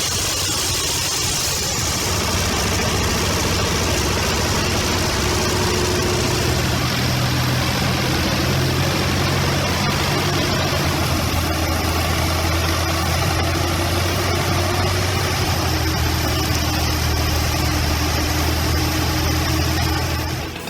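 A heavy machine's engine running steadily, with a low hum that shifts slightly in pitch about six seconds in, under a broad hiss of working noise.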